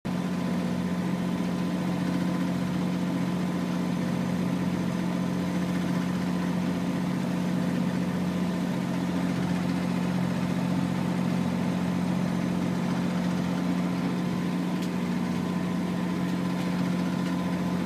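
A small boat's engine running steadily at an even speed, a constant low drone that neither rises nor falls.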